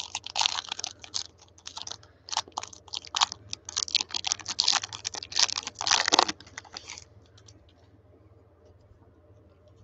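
Foil trading-card pack wrapper crinkling and crackling as it is torn open and the cards are slid out and handled, a dense run of irregular crackles and clicks that stops about seven seconds in.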